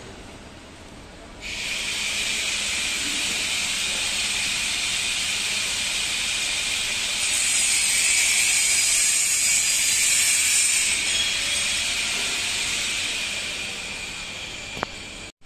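A steady high hiss starts suddenly about a second and a half in, swells toward the middle, then slowly fades, with one short click near the end.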